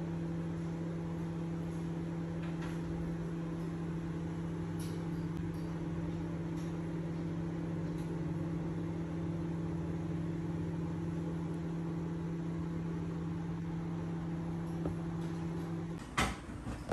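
Steady electric hum of a running kitchen appliance motor, even and unchanging. It stops abruptly near the end, followed by a short knock.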